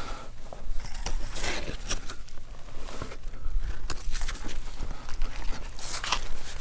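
Hiking shoes and hands scuffing and stepping on sandstone slabs and loose stones: irregular scrapes, crunches and clicks, over a steady low rumble of wind on the microphone.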